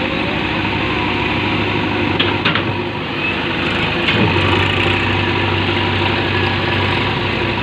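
JCB 3DX Eco backhoe loader's four-cylinder diesel engine running steadily as the machine pushes on its stabiliser leg to free itself from deep compost. A couple of sharp clicks come about two seconds in, and about four seconds in the engine note drops lower and grows stronger.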